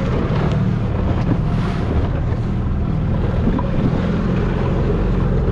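Engine running with a steady low drone, with wind rushing over the microphone.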